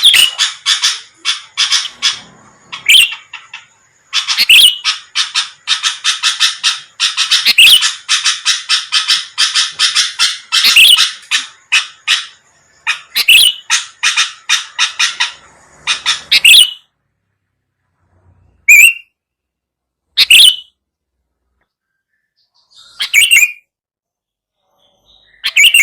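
Sooty-headed bulbul (kutilang) calling: a long, dense run of rapid chattering notes, then about four short separate calls with pauses between them near the end.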